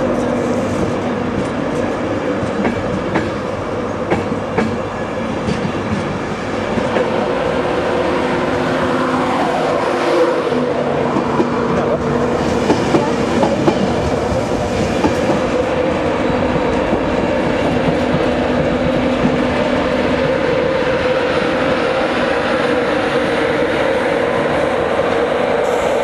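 InterCity 225 Mark 4 passenger coaches running past close by: a steady rail rumble with a steady hum and wheels clicking over the rail joints. A brief falling tone comes about nine seconds in.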